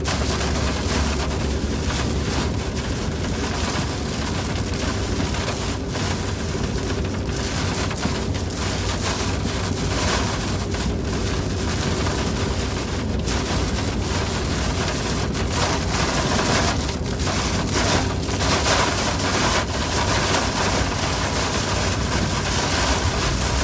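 Heavy rain falling on a moving car's roof and windshield over steady tyre and road noise on wet pavement: an even noise with a constant low rumble.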